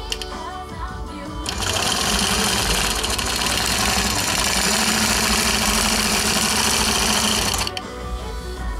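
Quilting machine stitching, starting about a second and a half in and stopping near the end, over background music.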